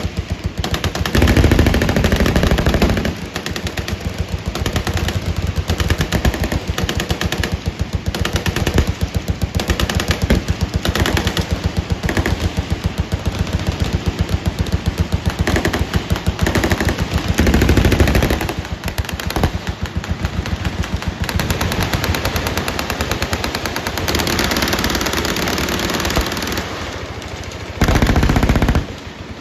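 Sustained automatic gunfire from many machine guns firing at once, an unbroken rapid crackle of shots. Louder, deeper blasts swell up a couple of seconds in, around the middle, and near the end.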